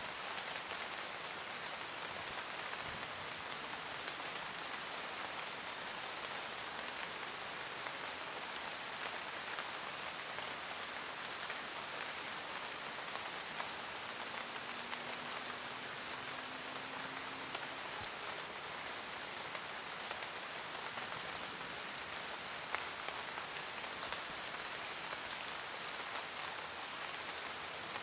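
Steady forest rain falling on leaves: an even hiss with scattered single drops ticking through it.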